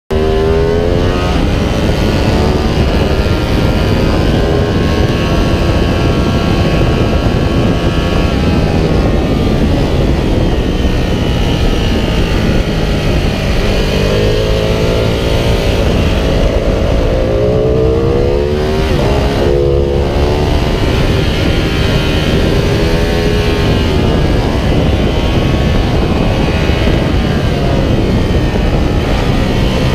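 Ducati Panigale 1199R's V-twin engine heard on board at racing speed, its pitch climbing under acceleration and dropping sharply as it slows, over and over through the lap.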